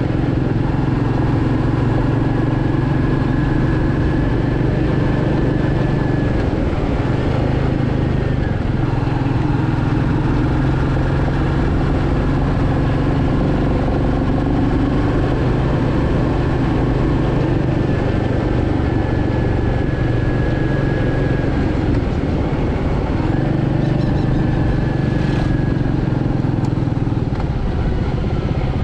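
Royal Enfield Meteor 350's 349 cc single-cylinder engine and exhaust running steadily as the motorcycle cruises. The engine note shifts slightly about a quarter of the way in and again about three quarters of the way in.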